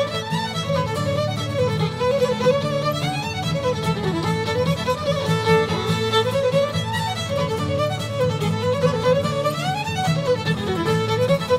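Music: a quick fiddle melody running up and down over a steady accompaniment.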